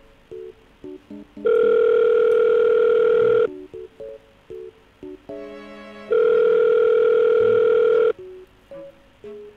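Telephone ringback tone while a call waits to be answered: two long steady rings, each about two seconds, a couple of seconds apart.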